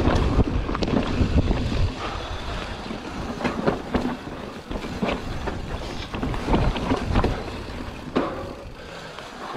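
Mountain bike descending a dry dirt woodland trail: tyres rolling over dirt and roots, with repeated clattering knocks from the bike over bumps. Wind buffets the microphone, heaviest in the first couple of seconds, and the riding noise eases toward the end.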